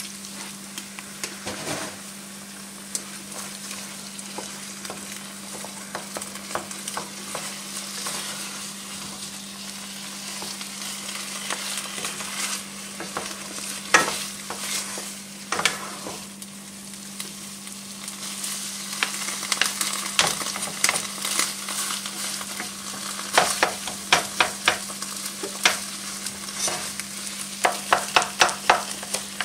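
Milk poured into a pot of mashed potatoes, then two wooden spatulas stirring, scraping and mashing them in a nonstick pot, with a quick run of taps against the pot near the end. A steady hiss and a low hum lie underneath.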